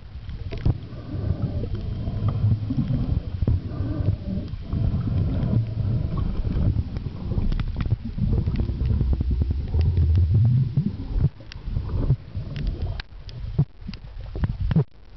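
Muffled low rumble of water moving around a camera held underwater, rising and falling unevenly, with scattered clicks and knocks. It turns quieter near the end, where the clicks stand out more.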